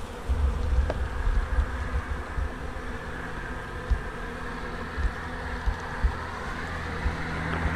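A small swarm of honey bees buzzing steadily in and around an open nuc box as a comb frame is lifted out, with a low rumble and a few soft knocks underneath.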